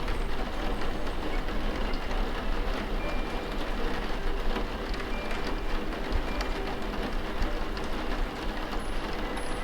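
Steady rain with a low rumble underneath and a dense patter of small drop clicks.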